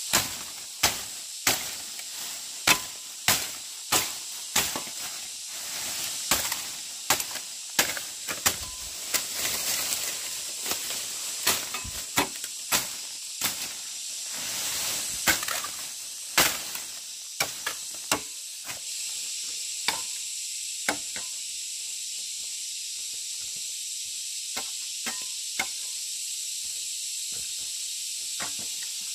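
Wood being chopped: sharp strokes at a steady pace of a little under two a second, thinning to occasional lighter strokes after about eighteen seconds, over a steady high hiss.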